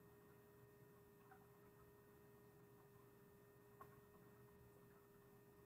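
Near silence: room tone with a faint steady hum and a tiny click about four seconds in.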